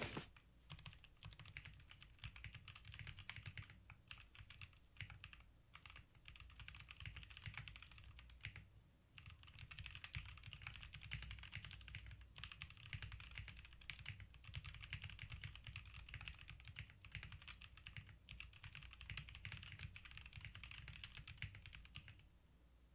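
Faint, continuous typing on a Gibkey G68 65% mechanical keyboard with Jixian Red linear switches and PBT keycaps: a rapid, irregular run of keystroke clacks with a couple of brief pauses, stopping shortly before the end.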